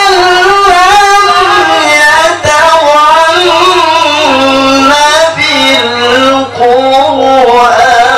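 A man singing an Islamic devotional chant into a microphone, one long unbroken melismatic line with wavering, ornamented pitch that rises and falls. A steady low hum sits underneath.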